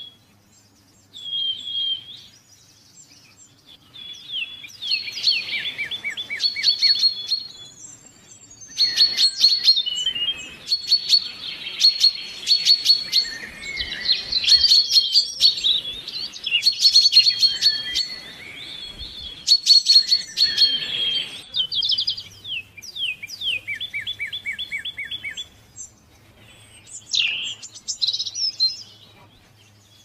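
Songbirds chirping and trilling, several at once, with quick runs of short repeated notes. The singing is sparse at first, thickest through the middle and thinner again near the end.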